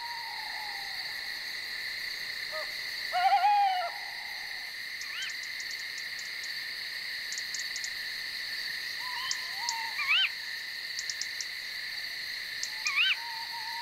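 Night ambience: a steady, high insect chorus with clusters of fine ticks. Over it come a few short owl calls that rise and fall in pitch, the loudest about three seconds in and others near ten and thirteen seconds.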